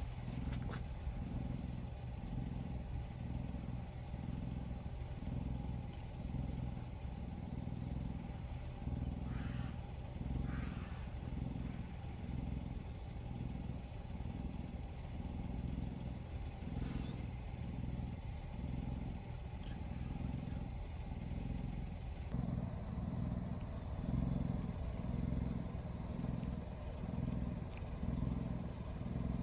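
A motor or engine running steadily, with a low rumble that pulses evenly about once every second and a bit.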